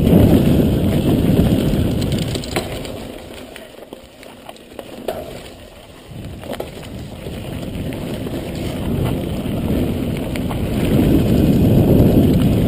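Wind rumbling on the camera microphone and tyres running over a dirt trail on a fast mountain-bike descent. The noise falls away for a few seconds in the middle, with a few sharp clicks, then builds again toward the end.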